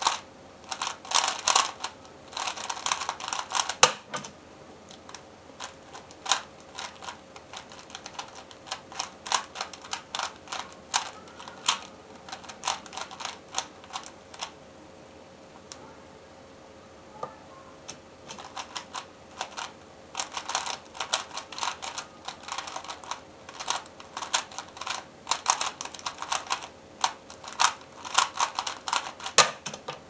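A 3x3 Rubik's cube being turned very fast by hand: rapid, dense clicking and rattling of its plastic layers, coming in bursts, with a quieter few seconds about halfway.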